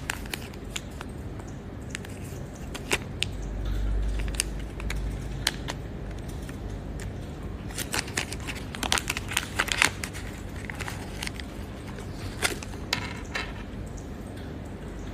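Handling noise: a scattered series of sharp clicks and light rattles of small hard objects, thickest about halfway through, with a low rumble a few seconds in.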